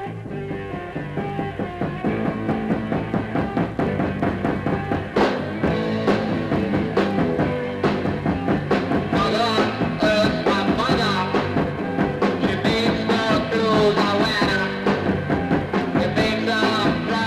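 Rock music with a steady beat and some singing, playing as an intro.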